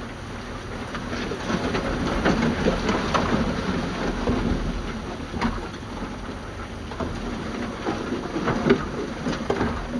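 Loose soil and stones sliding and tumbling, with scattered clatters of rock over a low rumble.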